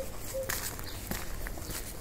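Footsteps of a person walking on a path, about two steps a second.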